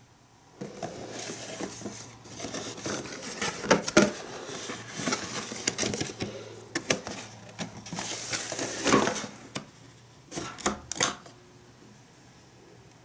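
Cardboard box being opened and its packaging rustling as a plastic egg mold is slid out, with scattered clicks and knocks. A few separate light clicks come near the end as the plastic mold parts are handled.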